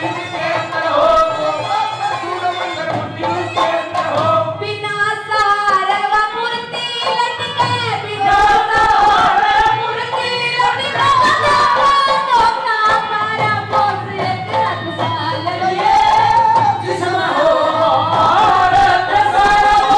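A woman singing a Haryanvi ragni folk song into a microphone, amplified through a stage sound system, with music behind her.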